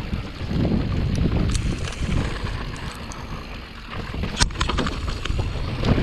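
Mondraker Level R electric mountain bike riding down a dirt trail: tyres rumbling over the ground and wind buffeting the microphone, with a single sharp clack about four and a half seconds in.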